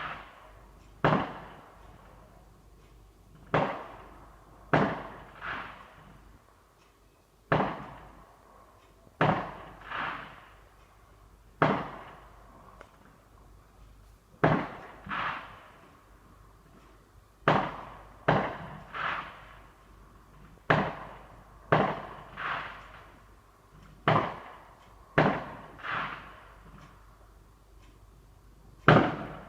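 Fireworks going off one after another: about twenty sharp bangs at irregular intervals of one to three seconds, each with a short echoing tail.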